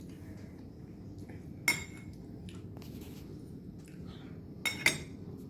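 Metal spoon and fork clinking against a plate as they are set down: one clink about a second and a half in, then two more close together near the end.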